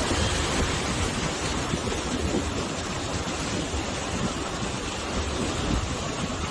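Sea waves surging on the shore with wind blowing, a steady dense rush with gusts buffeting the low end.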